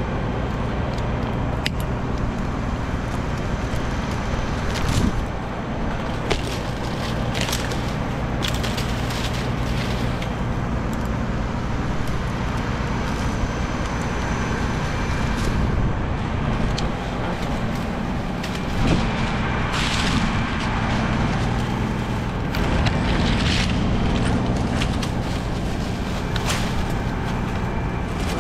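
Large engine running steadily with a low drone. Scattered knocks and clicks sound over it.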